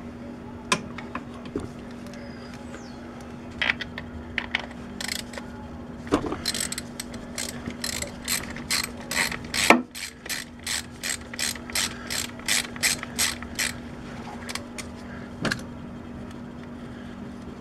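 Ratchet wrench with a 10 mm socket clicking as the coil-pack rack bolts are backed out: a few scattered clicks and knocks, then from about six seconds in a steady run of about three clicks a second that stops a few seconds before the end.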